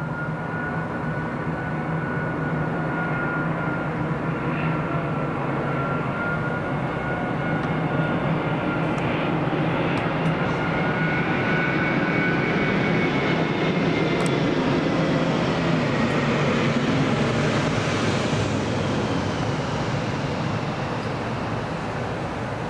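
The Rolls-Royce Trent 900 turbofans of an Emirates Airbus A380-842 on landing approach, passing low overhead. A steady jet roar carries a high whine; it grows louder to a peak past the middle as the aircraft goes over, then eases off near the end.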